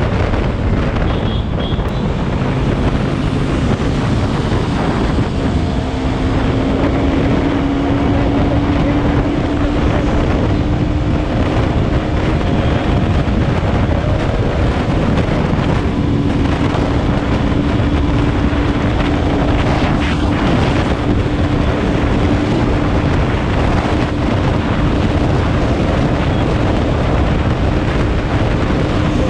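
KTM Duke 125 single-cylinder engine running at cruising speed on the road, its note edging slowly higher, under heavy wind buffeting on the microphone.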